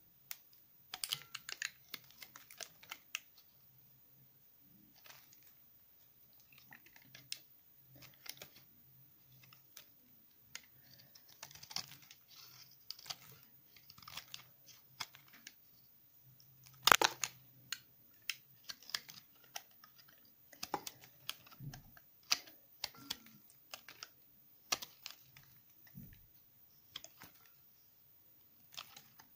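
Knife shaving thin slices off a bar of soap remnants pressed together, each cut giving crisp crackling clicks at irregular intervals, with one sharper, louder crack about 17 seconds in.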